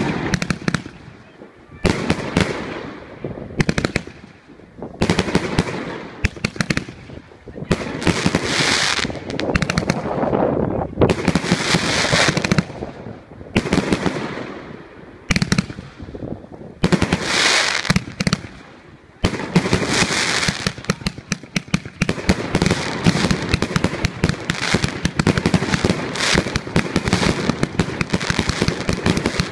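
Lucky Fireworks 724-shot mixed-calibre (30, 38 and 50 mm) fireworks cake firing. For about the first two-thirds, separate shots and bursts come with short gaps between them. Then a fast, continuous volley of sharp shots runs on.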